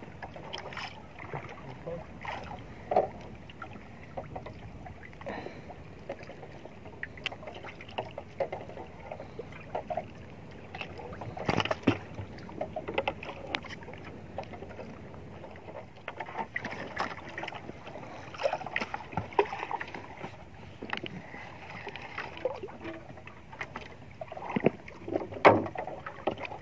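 Small waves lapping and slapping against the hull of a drifting wooden outrigger boat, over a steady rush of water and wind, with scattered short knocks from the boat and gear.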